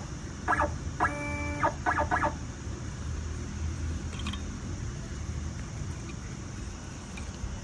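A hen clucking a few short times, with one longer held call, over a steady low hum.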